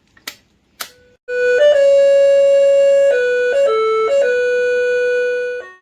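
Two sharp clicks, then an electronic keyboard plays a slow line of held notes in a flute-like tone, stepping between a few pitches, and stops abruptly near the end.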